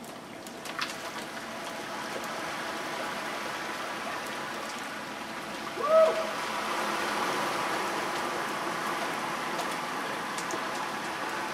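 Jeep Wrangler wading through shallow flood water, a steady rush of engine and churning water. About six seconds in, a short pitched call that rises and falls stands out as the loudest sound.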